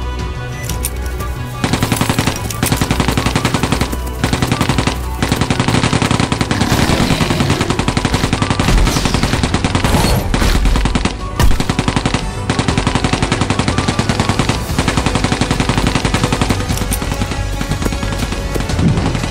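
Rapid automatic rifle fire in long bursts, starting about two seconds in, with a few brief breaks.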